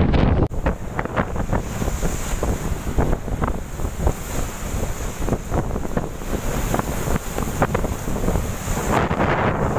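Strong wind buffeting the microphone over the rush of storm waves breaking and washing across a ship's deck, with irregular gusty thumps and splashes. The sound changes abruptly about half a second in.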